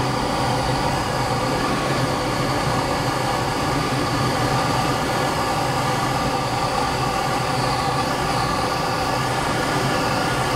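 Steady rush of airflow inside a glider's cockpit on final approach, a continuous noise with faint steady whistling tones in it.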